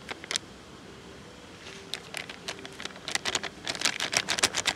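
Chili powder sprinkled and rubbed from the fingers over mashed potato and onion: a couple of light clicks, then from about two seconds in a quick run of small crackling taps that grows denser toward the end.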